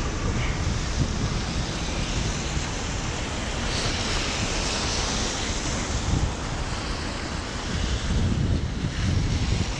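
Rainy city street ambience: a steady hiss of rain and tyres on wet road, with wind buffeting the microphone in uneven low rumbles.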